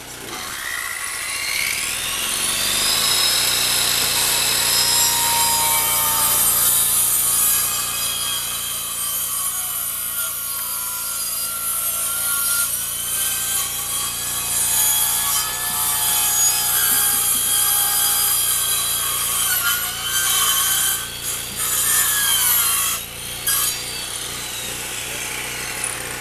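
Electric power tool spinning up with a rising whine, running under load with a harsh cutting noise for about twenty seconds, briefly dipping a few times, then winding down with a falling whine near the end.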